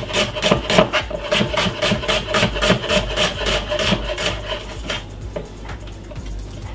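Chef's knife chopping a red onion on a wooden cutting board in quick, even strokes, about five a second. The chopping stops about five seconds in.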